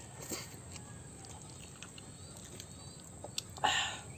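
A person eating very spicy instant noodles outdoors: faint background with one short, breathy sucking sound from the mouth about three and a half seconds in.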